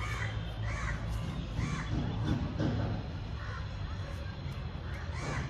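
A crow cawing several times in separate harsh calls, over a steady low rumble.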